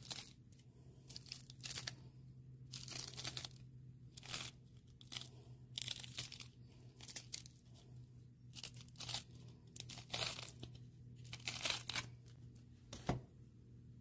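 Silicone mould being peeled off a cured resin coaster set with iridescent cellophane film: irregular crackling and crinkling as the mould pulls free of the textured resin surface, with a sharp snap about a second before the end.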